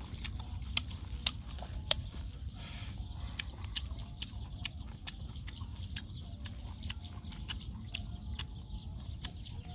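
A person chewing mouthfuls of fresh mango: an irregular run of short, sharp wet clicks and smacks, several a second, over a steady low rumble of wind on the microphone.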